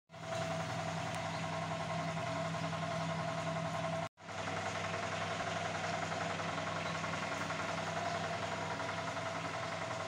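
An engine idling steadily, with a brief dropout about four seconds in.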